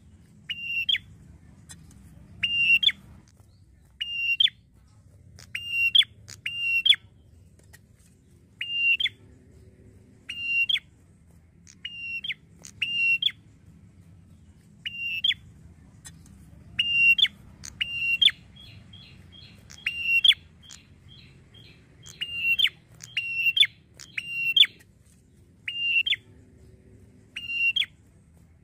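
Tailorbird repeating a sharp, piercing call note about every second and a half, sometimes twice in quick succession, with a fast chattering trill between calls from about 18 to 21 seconds in. This is a lure call used to draw a response from other tailorbirds.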